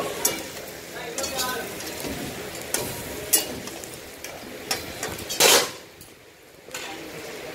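Metal ladles scraping and clanking against iron karahi woks over wood fires, with dumba (fat-tailed sheep) meat sizzling and frying in them. Sharp clinks come every second or so, and there is one loud short rush of noise about five and a half seconds in.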